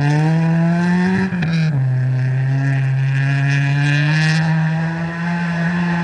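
Rally car's engine accelerating hard away on a dirt stage: the pitch climbs, drops at an upshift about a second and a half in, then holds a steady, slowly rising note as the car pulls away.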